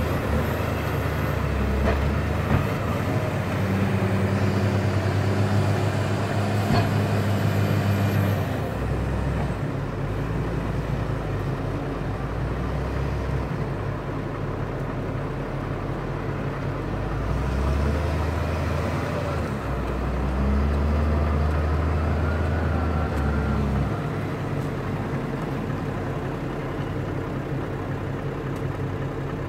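Diesel engine of a Case 721F wheel loader working under load as it digs and lifts a bucket of manure. The revs rise twice, in the first third and again about two-thirds through, and settle back between.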